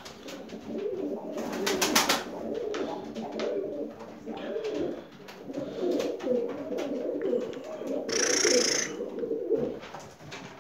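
Several Turkish tumbler pigeons cooing continuously in a small loft room. A short burst of rustling noise comes about one and a half seconds in, and a brief high-pitched noise about eight seconds in.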